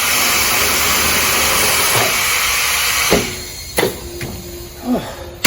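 Compressed air hissing into a car tire to seat its bead, the hiss dropping away about three seconds in. A sharp pop follows about a second later and another near the end, typical of the tire bead snapping onto the rim.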